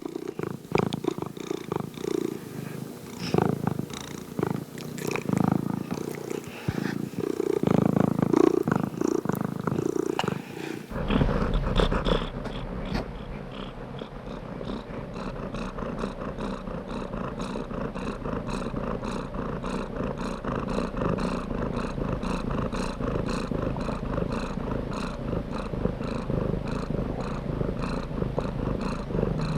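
Domestic cat purring close up. The purr is uneven for the first several seconds, then about eleven seconds in it changes abruptly to a steadier, even purr.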